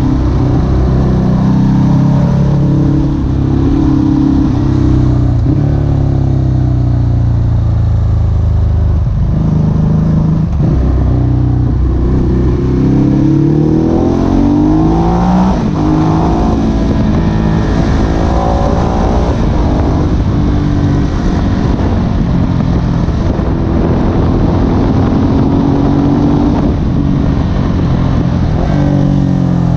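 Ducati Hypermotard SP's L-twin engine running and being revved, its pitch climbing and dropping back several times as the throttle is opened and closed.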